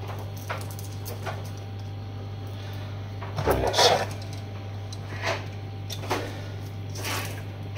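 Faint clicks and rustles of a garlic clove being peeled by hand and a metal garlic press being handled and loaded, over a steady low hum.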